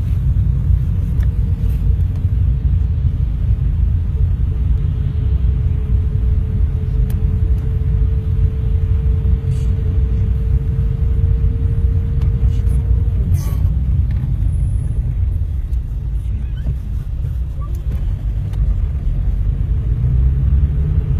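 Road noise heard inside a moving car's cabin: a steady low rumble of the engine and tyres on wet asphalt. A faint steady hum sits over it for several seconds in the middle.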